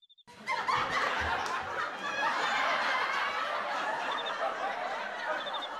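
Sitcom laugh track: many overlapping recorded laughs that come in suddenly about half a second in and carry on at a steady level.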